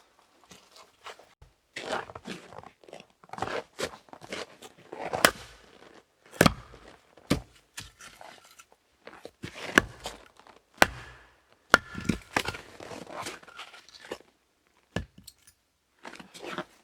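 Irregular crunching and rustling with about half a dozen sharp knocks spread through it, the loudest around the middle.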